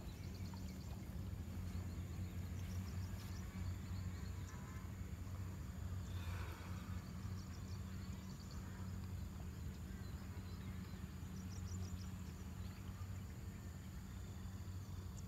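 Small engine of a motorized pesticide sprayer running steadily in a low, even hum. Faint high chirps come and go over it.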